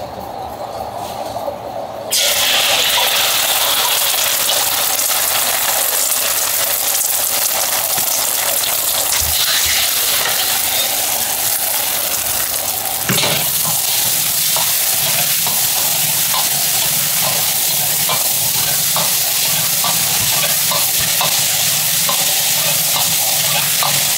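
Egg and rice frying in a hot rotating wok: a loud sizzle that starts suddenly about two seconds in, with a flat spatula scraping and tapping the pan as the fried rice is stirred. A low hum joins about halfway through.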